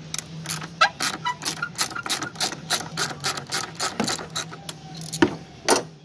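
Socket ratchet wrench clicking as it turns a nut on a car battery, a quick run of clicks about four to five a second. Two louder knocks follow near the end.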